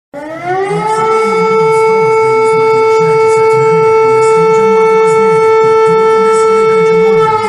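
Warning siren sounding a steady tone: it rises in pitch over about a second, holds one loud, even pitch, and begins to fall near the end.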